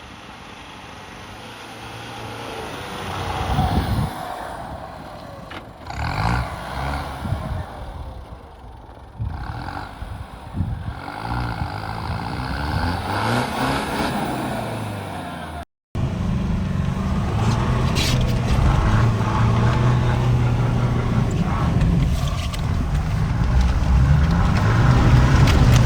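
Mitsubishi L200 pickup engine revving up and down in deep snow, then after a cut running steadily and louder under load.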